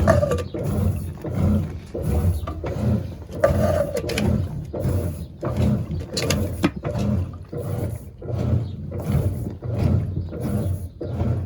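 GE Imagination 10 kg washing machine (LVGE1020) running with a rough mechanical noise that pulses about three times every two seconds.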